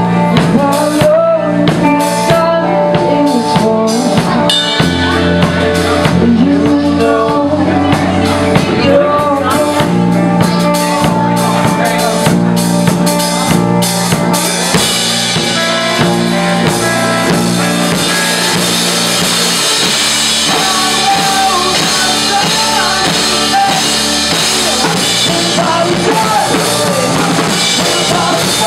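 Live rock band playing: drum kit, electric bass and electric guitar. About halfway through, cymbals swell into a steady wash, and voices sing near the end.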